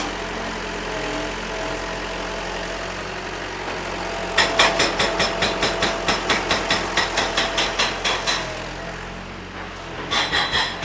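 Hammer striking demolition scrap in a quick, even run of about five blows a second, for about four seconds from midway, with more blows starting near the end. The blows knock leftover concrete off the scrap. A steady engine hum runs underneath.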